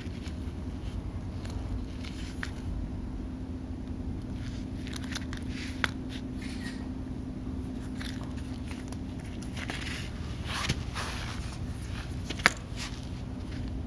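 Scattered rustles and sharp clicks of a sandal being handled, over a steady low hum. The loudest click comes near the end.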